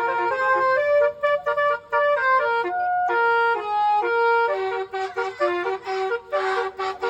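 Bus telolet horn of the basuri type playing a quick melody of stepped, flute-like notes. About four and a half seconds in, a noisy rush joins as the tune goes on with repeated notes.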